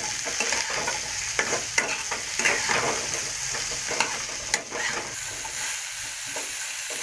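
Mixed vegetables (potato, drumstick, pumpkin, brinjal) frying in oil in a pan and sizzling steadily while being stirred, with irregular scraping strokes of the spoon against the pan.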